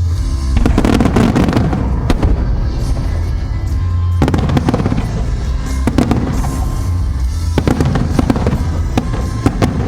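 Aerial fireworks bursting in quick succession, sharp bangs and crackles following one another throughout, over music with a heavy, steady bass.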